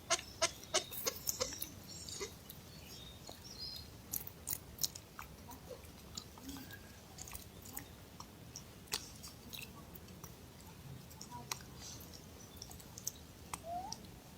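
Sharp crunching clicks like chewing, quick and regular for about the first two seconds, then scattered, with a short faint rising squeak near the end.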